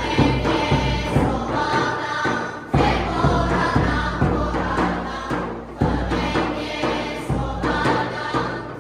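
A group of voices singing an Armenian folk dance song together, with a low sustained accompaniment underneath that drops out briefly and comes back a few times.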